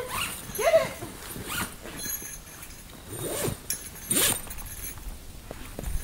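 A puppy gives a short rising-and-falling whine, then several scraping, rustling swishes follow.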